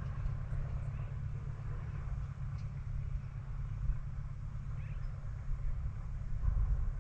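Wind buffeting the camera's microphone: a low, unsteady rumble that rises and falls, with a faint hiss of open-air ambience above it.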